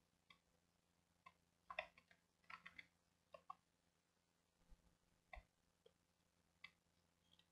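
Faint, irregular clicks of a computer mouse and keyboard being worked, about a dozen in all and bunched around two to three seconds in, over a faint steady hum.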